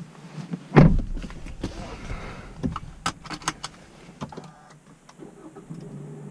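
A car door shuts with a heavy thud about a second in, followed by a run of sharp clicks and rattles inside the cabin. A steady low hum sets in near the end.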